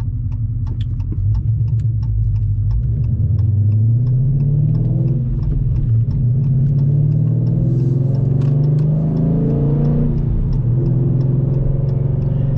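2018 Dodge Challenger R/T Scat Pack's 6.4-litre HEMI V8, with a Flowmaster muffler, accelerating. Its pitch climbs, falls back about five seconds in, climbs again and falls again about ten seconds in, then holds steady at cruise.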